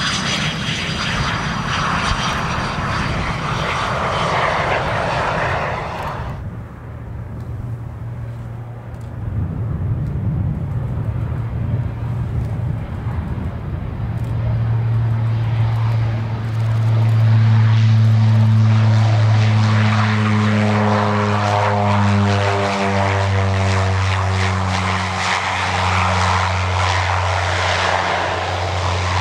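Fixed-wing aircraft engine noise. A rushing engine sound with a faint high whine stops abruptly about six seconds in. A propeller aircraft's engine drone then builds up, is loudest past the middle, and drops slightly in pitch as it passes.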